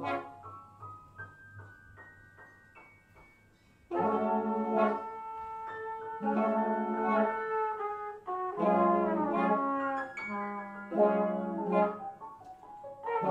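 Jazz big band brass section, trumpets and trombones, playing loud stacked chords in short repeated stabs. The section comes in sharply about four seconds in, after a quiet stretch of sparse single notes.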